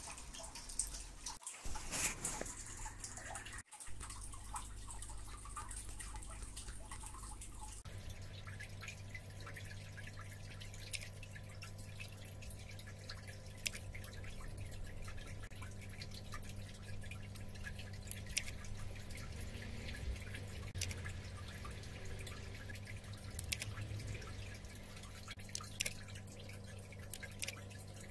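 Royal Kludge RK61 mechanical keyboard being typed on: a quick run of key clicks in the first few seconds, then single keystrokes spaced irregularly, a second or more apart.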